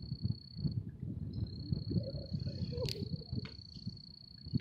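Insect trilling on one steady high note, breaking off briefly about a second in, over a low irregular rumble, with a couple of sharp clicks about three seconds in.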